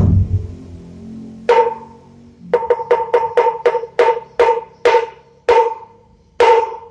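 A bedug, a large Javanese mosque drum, struck with a stick. It gives one deep boom from the hide head at the start, then about a dozen sharp, ringing knocks on the drum's wooden shell, coming quickly at first and then spreading out.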